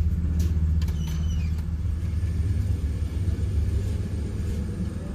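A pickup truck's engine running with a steady low drone, heard from inside the cab. A few light clicks and a short squeak come about a second in as a paper cup is handled.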